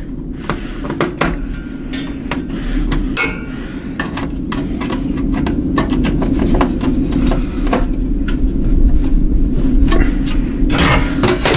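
Irregular clicks and knocks of metal parts being handled inside a mining-rig case as boards are loosened and shifted to make room for graphics cards, over a steady low hum.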